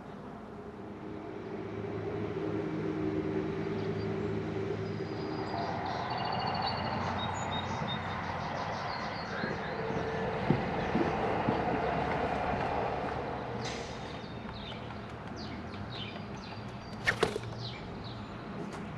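Outdoor ambience: a motor vehicle rising and fading as it passes, with small birds chirping faintly. A single sharp click about halfway through and a quick pair of clicks near the end.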